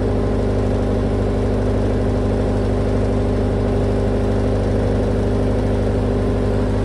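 Doosan 30 kVA diesel generator set running steadily, a constant low engine drone with no change in speed.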